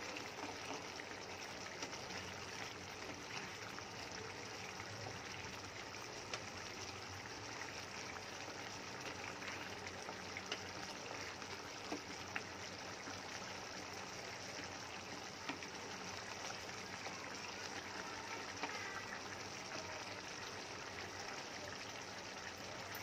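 Egg curry bubbling steadily in a frying pan, a soft continuous sizzle and bubbling, with a few small clicks scattered through it.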